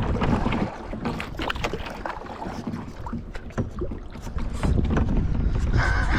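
Kayak paddle strokes splashing and dripping in lake water, with wind buffeting the microphone, heavier in the last couple of seconds.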